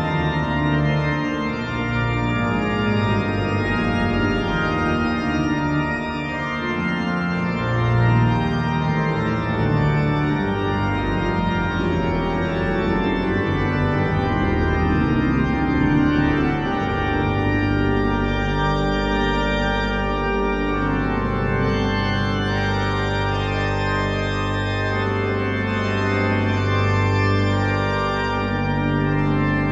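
Church organ playing a slow piece of held chords, the notes changing in steps. From a little past halfway, a low bass note is held under the changing chords.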